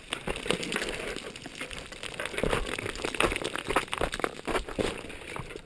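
Mountain bike moving over rocky ground and loose scree: tyres crunching on gravel and the bike rattling in many short clicks and knocks.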